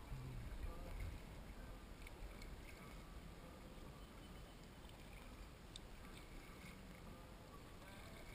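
Faint sounds of a kayak being paddled on calm water: the paddle dipping and dripping, over a steady low rumble.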